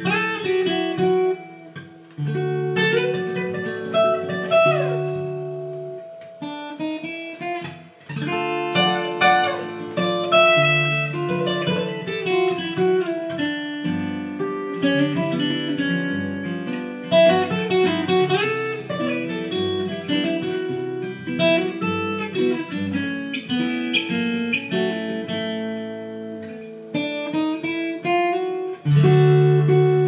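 Two acoustic guitars playing an instrumental duet: sustained chords and bass notes under a picked melody line, with brief pauses about 2 and 8 seconds in.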